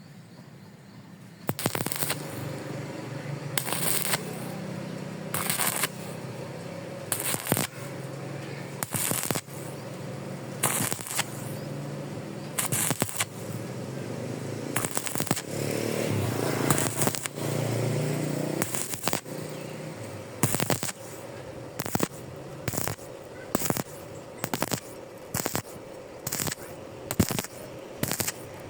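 Stick welding thin iron with an E6013 electrode: continuous arc crackle broken by repeated short, louder bursts, which come closer together in the second half.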